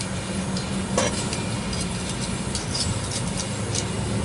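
Steady low hum of a vehicle engine, with a sharp click about a second in and several light clicks and rustles of a leather seat cover being handled.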